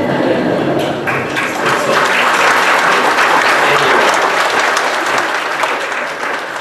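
Congregation applauding; the clapping swells about a second in and eases off near the end.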